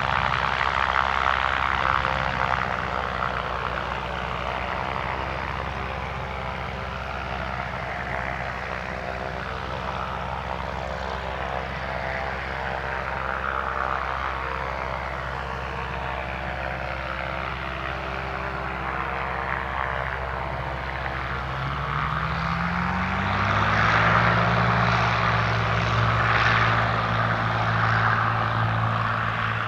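Cessna 182 Skylane's piston engine and propeller running steadily. Near the end the engine note rises in pitch and gets louder as power comes up for the takeoff it has just been cleared for.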